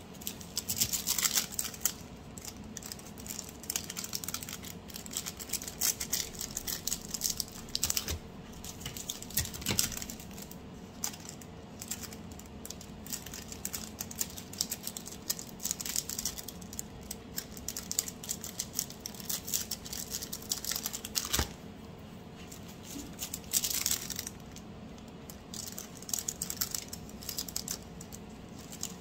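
Thin clear plastic treat bags crinkling and rustling as butter bars are slid into them one after another, with many small clicks and crackles.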